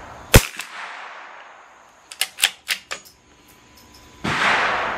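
CZ 457 bolt-action .22 LR rifle fires once with a sharp crack about a third of a second in. Around two seconds in come four quick metallic clicks of the bolt being cycled for the next round, and near the end a sudden rushing noise rises and fades over about a second.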